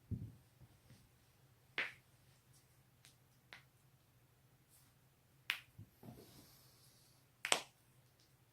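Joints cracking: a string of sharp, separate pops, about one every two seconds, the loudest near the end, with a short low thump at the very start.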